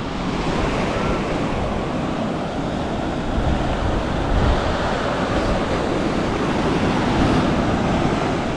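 Fairly strong surf washing onto the beach, a steady rush of waves that swells louder a few times, with wind rumbling on the microphone.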